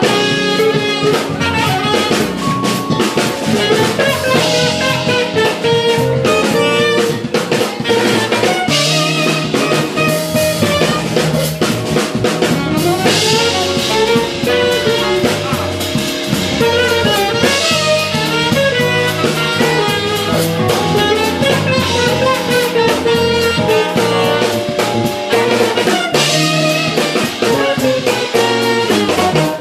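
Live jazz-fusion band playing: drum kit, electric bass and electric guitar, with a saxophone playing over them.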